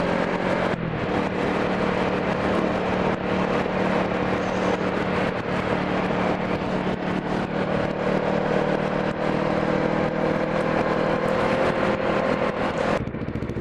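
Motorcycle engine running at a steady cruising speed under the rider, with steady wind and road noise. Near the end the engine sound drops away sharply.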